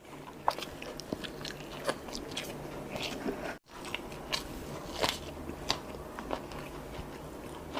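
Close-up chewing and biting of food, with irregular wet clicks and smacks of the mouth, a few of them louder, and a brief cut to silence about three and a half seconds in.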